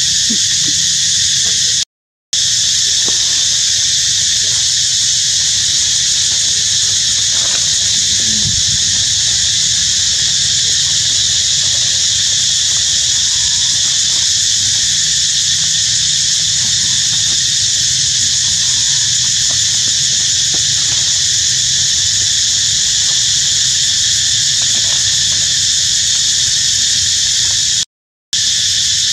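Steady high-pitched drone of insects, cut by two brief dropouts to silence, one about two seconds in and one near the end.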